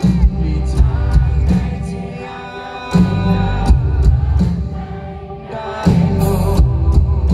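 Live pop-rock band playing loud through a concert PA: drums and heavy bass with electric guitar, and a male lead singer.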